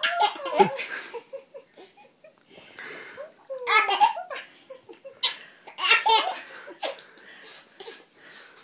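Baby laughing in high-pitched peals, with three main bursts and quieter giggles between.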